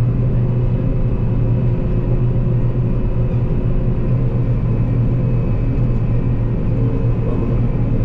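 John Deere 9560 STS combine running while harvesting barley, heard from inside the cab as a steady low drone.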